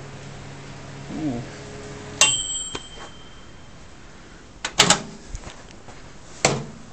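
Samsung M735 microwave oven humming as it runs. About two seconds in, its timer bell dings and the hum stops. Sharp clacks follow, a pair just under five seconds in and another near the end, as the door is released and swung open.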